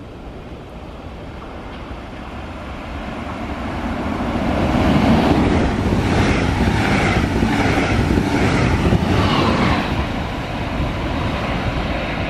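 Red double-deck regional passenger train approaching and passing at speed under the overhead wires, its wheels rumbling on the rails. The sound swells over the first few seconds. While the coaches go by there is a repeating clatter as their wheel sets pass.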